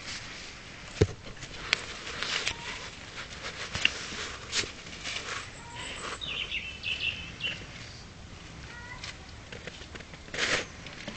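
Bracco Italiano puppies squeaking in short high-pitched calls, among scattered clicks and scuffles of movement.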